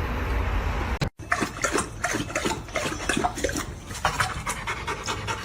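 A dog panting in quick, steady breaths, starting about a second in after a low rumbling noise cuts off abruptly.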